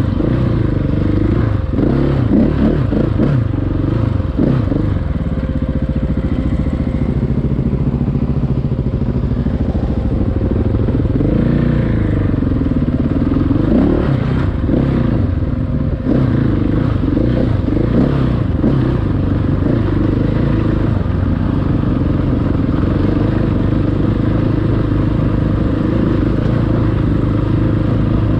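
Single-cylinder engine of a 690 enduro motorcycle being ridden, revving up and down in the first few seconds and again about halfway through, then running at a steadier pace, with light clatter over it.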